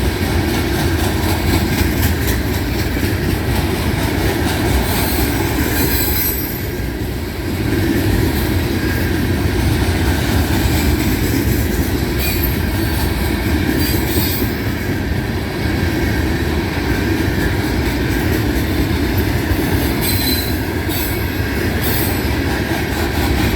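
Freight train of loaded rock hopper cars rolling past close by: a steady rumble of steel wheels on rail, with brief high wheel squeals now and then.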